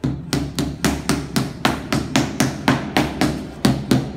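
Rubber mallet tapping a large ceramic floor tile in a steady run of quick blows, about four a second, bedding the tile down into the mortar to level it with its neighbours.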